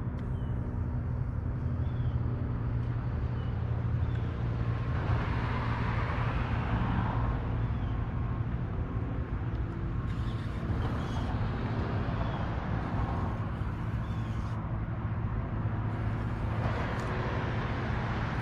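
Steady low hum of a bass boat's electric trolling motor. Traffic swells twice as vehicles cross the road bridge, and a few faint bird chirps come through.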